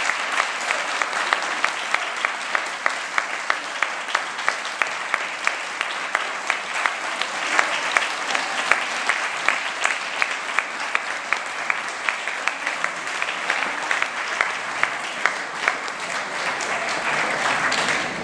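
Audience applauding, with one pair of hands close by clapping steadily about two to three times a second; the applause swells near the end, then drops away.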